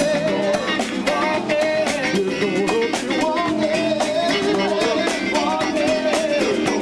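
Live band playing a song: drum kit keeping a steady beat under guitar, with a bending lead melody line on top.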